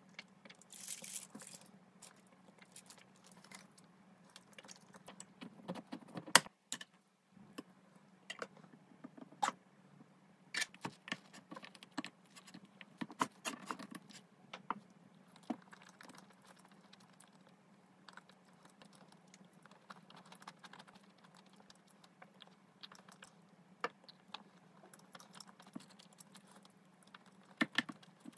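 Wooden spoon scraping, tapping and clicking against a clear plastic container as it digs into a firm, cream-topped dessert that is harder than expected, with scattered sharp clicks over a faint steady hum. A short slurp through a straw comes at the start.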